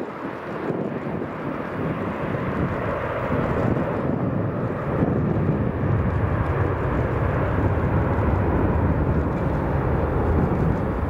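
Airbus A380-861 climbing out after takeoff, its four Engine Alliance GP7200 turbofans at takeoff power: a steady, deep jet roar. It grows louder and heavier in the low end from about five seconds in.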